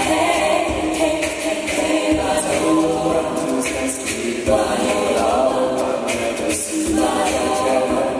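A cappella group of mixed men's and women's voices singing a song in harmony through microphones, with no instruments.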